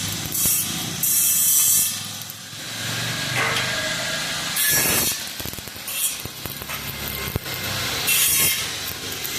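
Electric arc welding on steel gate hinges: a crackling hiss that comes in several short bursts of half a second to a second, typical of tack welds, over a steady low hum.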